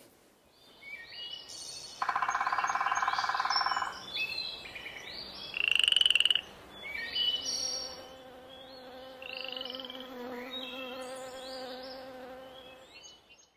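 Insect-like buzzing and chirping with croaks: a loud buzz about two seconds in, a short rising whistle near six seconds, then a steady low hum under scattered chirps that stops just before the end.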